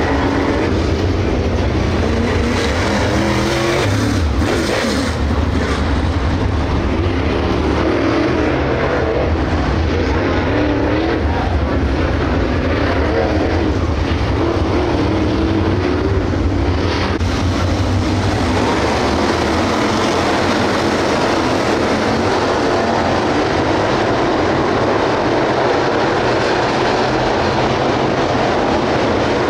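Several dirt late model race cars with 602 crate V8 engines running around the track in a continuous rumble. The deep low part of the rumble eases about two-thirds of the way through.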